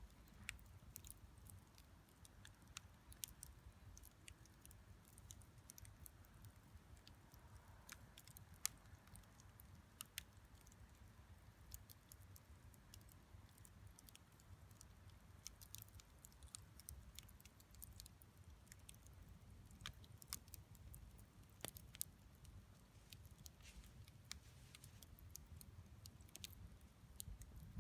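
Campfire wood burning with sparse, irregular crackles and small pops, over a faint low rumble.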